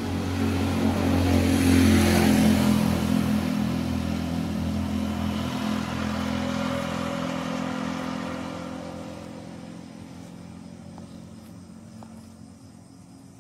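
A motor vehicle's engine running, loudest about two seconds in and then fading steadily away.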